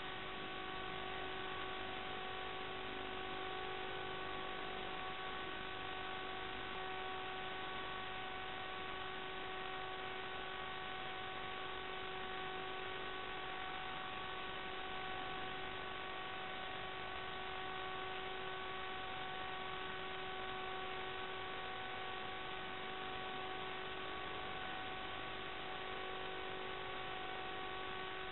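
Steady electronic hiss with a constant hum tone and its overtones, unchanging throughout, with no motor or propeller sound rising and falling.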